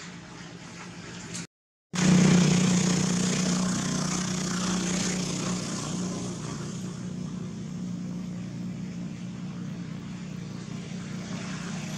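Engine of a motor vehicle running, a steady low hum with a wide rushing noise. It cuts out for a moment just before two seconds in, comes back louder, and slowly fades.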